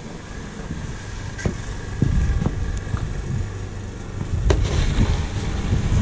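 Wind rumbling on the microphone, with a few sharp scrapes and knocks of a snow shovel on the driveway, more of them in the second half.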